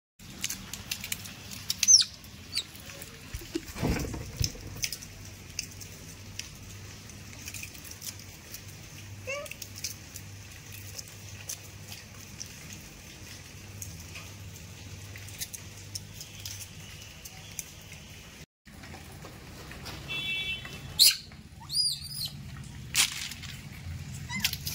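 A troop of rhesus macaques feeding on scattered food on the ground: scattered small clicks and rustles from handling and chewing. A few short, high gliding calls come through, most of them in the last few seconds.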